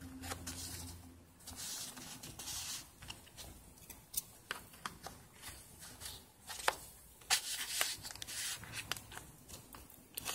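Handling noise: stainless steel tweezers clicking and sliding as they are tucked into the pockets of a small tweezer case, with brief rustles as the case is handled. Scattered light clicks, with a couple of short rustles about two and a half seconds in and again a little past seven seconds.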